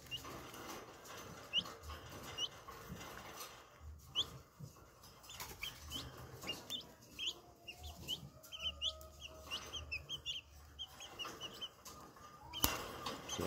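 Green junglefowl chicks peeping with short, high rising chirps while feeding, sparse at first and then many in quick succession through the middle.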